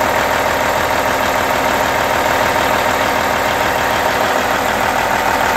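Cummins N14 inline-six diesel in a Peterbilt 379 idling steadily, with a steady high tone running through it.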